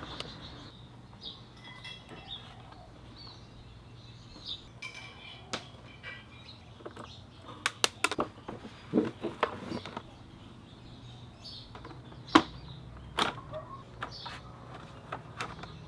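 Scattered clicks and knocks of a screwdriver and hard plastic parts as a Givi motorcycle top case is taken apart, with a cluster in the middle and the sharpest knock about twelve seconds in. Birds chirp faintly in the background over a low steady hum.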